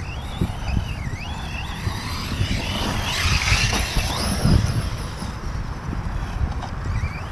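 Reely Raptor 6S brushless electric RC car driving on dirt on a 4S battery: its motor whine rises and falls with the throttle and is loudest about three to four seconds in as the car comes close, over a steady low rumble.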